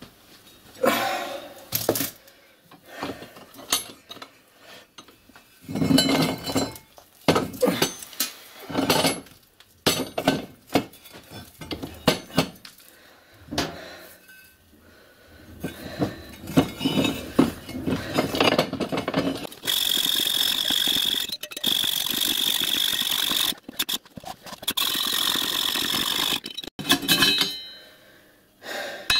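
Clanks and clinks of a heavy steel tram-rail offcut being moved and clamped in a cast-iron bench vise, then a hand hacksaw cutting through the old steel rail in a steady rasp with a high ringing note, broken by short pauses, from about 20 s to about 26 s.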